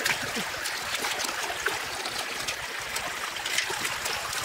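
Water trickling and running in a shallow muddy drain pool, with small splashes and drips as hands and a woven basket move through it.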